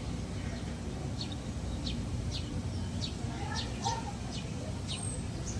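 Small birds chirping: short, high chirps repeating about every half second, over a steady low background rumble.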